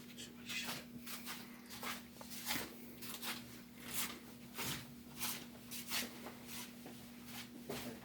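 Home Trends 30-inch ceiling fan running: a steady motor hum with a repeating noise pulse about every two-thirds of a second as it turns.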